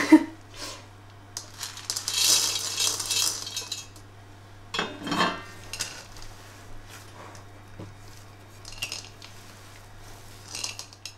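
More chocolate chips tipped into an earthenware mixing bowl, pattering and clinking for about a second and a half, with a knock of dishware about five seconds in. Then come the quieter sounds of hands working the chips into the dough.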